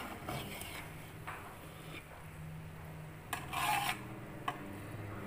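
A metal spoon scrapes and rubs against a steel cooking pot while mixing cooked rice, in a few short scrapes with a longer one about three and a half seconds in. A low steady hum runs underneath.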